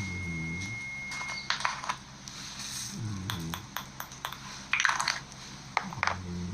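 Slime being squished and poked by hand, giving irregular sharp clicks and crackling pops.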